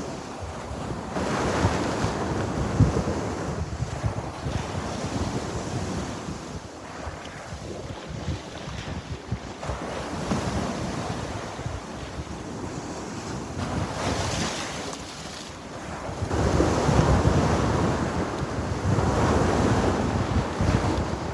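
Sea waves breaking and washing on the shore, the surf swelling and falling back every few seconds, with the heaviest breakers near the end. Wind buffets the microphone with a low rumble.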